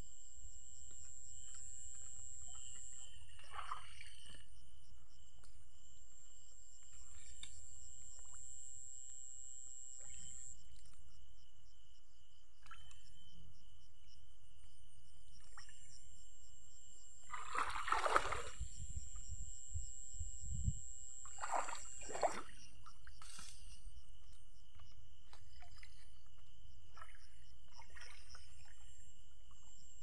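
Night insects keep up a steady high-pitched trill while shallow stream water sloshes and splashes as a hand and stick move through it, loudest about halfway through and again briefly a few seconds later.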